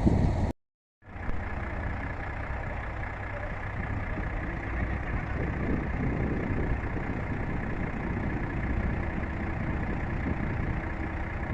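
An engine running steadily at idle, with a brief break to complete silence about half a second in.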